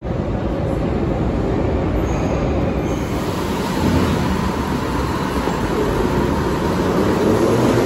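Metro train running along a station platform: a steady rumble of wheels on rail that grows a little louder about four seconds in, with a couple of brief faint high wheel squeals before that.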